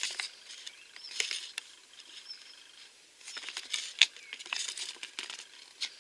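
Light rustling and small clicks of hands handling a small plastic toy figure and its paper collector's leaflet and packaging, sparse in the middle and busier in the second half, with one sharper click about four seconds in.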